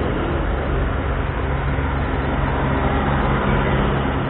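Intermodal freight train's trailer-laden flatcars rolling past at speed: a loud, steady rumble of steel wheels on the rails.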